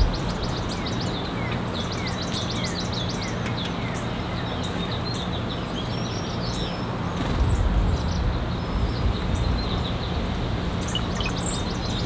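Songbirds chirping, with a fast run of repeated high notes in the first few seconds and scattered chirps later. Under them, wind rumbles on the microphone and gusts stronger about seven seconds in.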